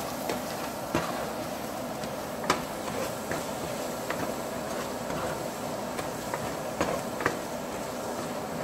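A spoon stirring thick tomato-onion masala in a pot, scraping and knocking against the pot every half second or so, over a steady sizzle as the freshly added ground spices fry into the masala.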